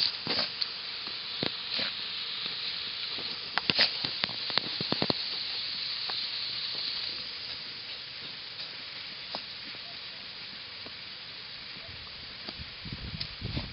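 A dog digging in loose soil with its paws: a steady scratching hiss of dirt being raked and thrown, with sharp clicks scattered through it and a cluster of them about four seconds in. A lower rustling comes in near the end.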